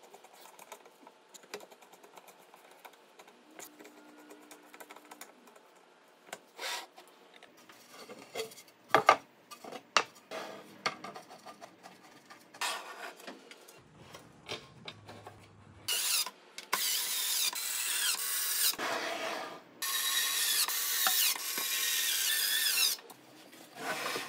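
Hand-tool work on plywood: faint clicks of a screwdriver driving a screw into a plywood fence, then scattered knocks of wood being handled. About two-thirds in come two long spells of loud rubbing and scraping on wood, like a rasp or sandpaper.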